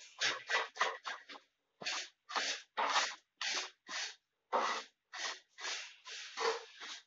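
Hand rubbing strokes over a kitchen countertop in quick, irregular passes, roughly two a second, with a short pause about a second and a half in.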